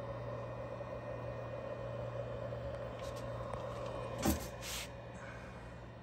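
A steady low hum, with a single knock and a short rustle about four seconds in.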